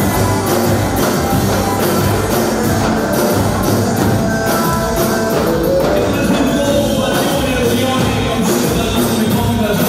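Music with percussion, playing steadily.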